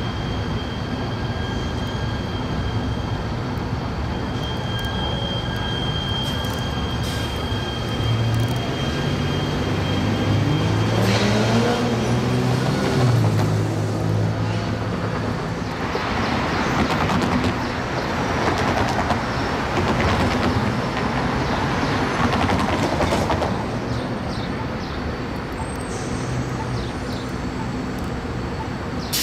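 Electric light rail train running, its traction motors whining in a rising pitch about ten seconds in as it speeds up. Then comes a louder stretch of wheel-on-rail rush for several seconds.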